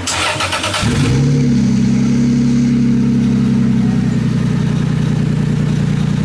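A turbocharged Toyota 2JZ straight-six is cranked by its starter for about a second, catches, and settles into a steady fast idle. This is the engine's first start after being swapped into the car.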